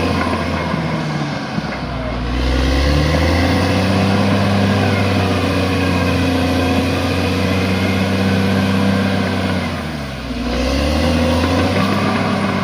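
Bulldozer's diesel engine working hard under load, its note easing off briefly about two seconds in and again near the end, then building again.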